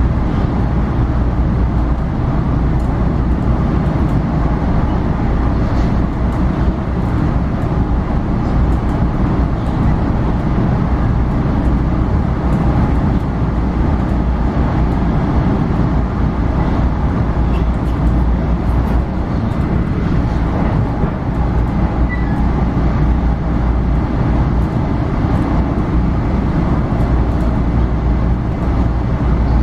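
Steady rumble of a moving commuter train heard from inside the passenger car, deep and unbroken.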